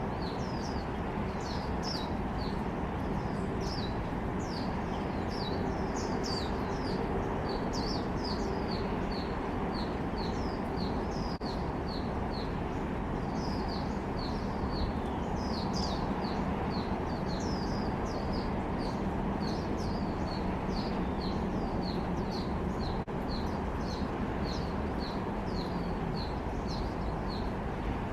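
A small songbird calling over and over in short, high notes that each drop in pitch, about two a second without a break, over a steady low background rumble.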